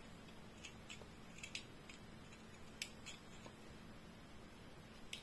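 Small sewing scissors snipping notches into the seam allowance of a V neckline: several faint, short snips at irregular intervals.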